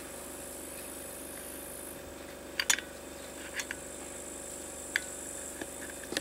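A few light clicks and taps of small metal hand tools against a two-stroke chainsaw's plastic parts while its carburetor fuel line is being worked loose, over a steady high chirring of crickets.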